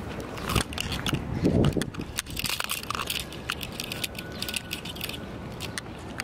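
Irregular crackling and clicking handling noise from a hand-held camera carried while walking, with the scattered clicks densest in the middle stretch.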